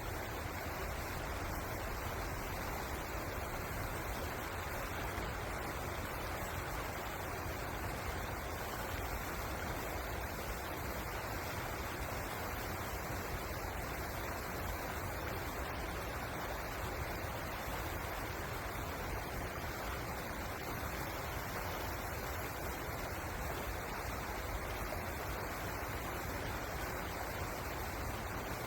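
Steady, unbroken rush of a flowing river.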